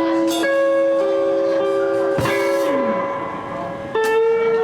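Electric guitar strings plucked and left to ring, often two notes at once, restruck three times, with one note sliding down in pitch partway through, as when a guitarist tunes up to a B flat reference.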